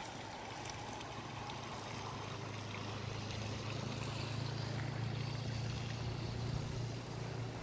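Strong wind blowing steadily, a continuous hiss of air and rustling dead leaves, over a steady low hum.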